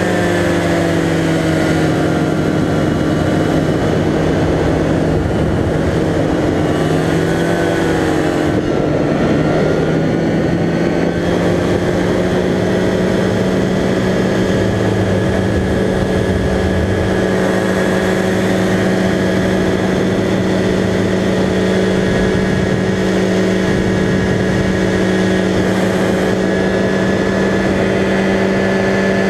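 Powered paraglider's engine and propeller running in flight. The engine note drops at the start and swings up and down a few times about seven to nine seconds in, then holds steady.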